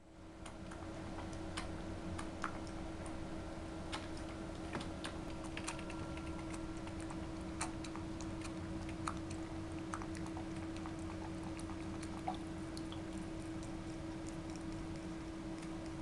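A cat lapping water from a bowl: soft, irregular tongue clicks, more frequent in the first half, over a steady low hum.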